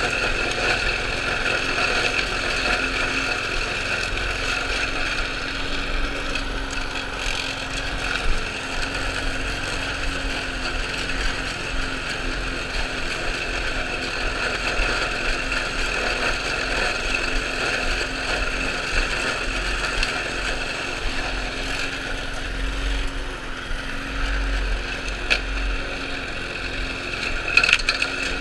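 Small gas engine of a walk-behind rotary lawn mower running steadily as it is pushed across grass, with a few short clicks near the end.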